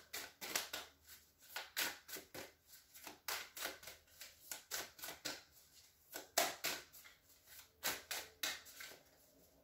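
A deck of tarot cards being shuffled by hand, overhand style, cards dropping from one hand into the other in a run of short sharp slaps, about three a second, that stops just before the end.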